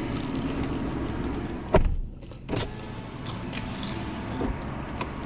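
A fried crab rangoon being bitten into: a short crunch a little under two seconds in and another shortly after, over a steady low hum.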